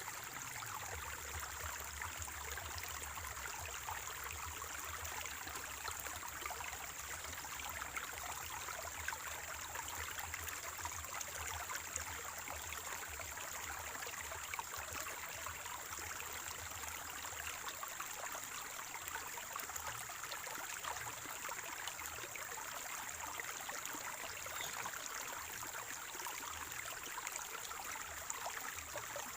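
Spring-fed stream water flowing and gurgling steadily, a continuous even rush with a thin steady high-pitched tone above it.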